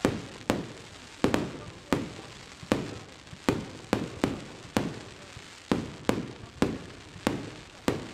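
Fireworks display: a steady run of sharp bangs, about one to two a second, each trailing off in a short echo.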